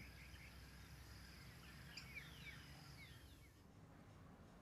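Near silence: faint outdoor ambience with a few soft, quick bird chirps in the middle.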